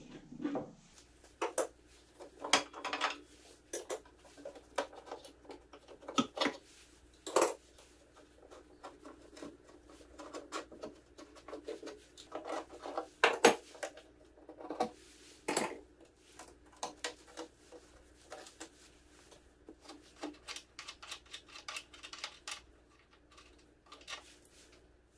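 Hand-tool work on the bandsaw's wooden housing: irregular clicks, knocks and scraping of metal tools and clamps against wood and metal. The sharpest knock comes about thirteen seconds in, amid a denser stretch of scraping.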